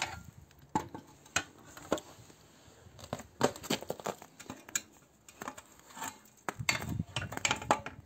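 Irregular light clicks and metallic clinks from old painted-steel wringer frames being handled, with two busier runs of knocks, one in the middle and one near the end.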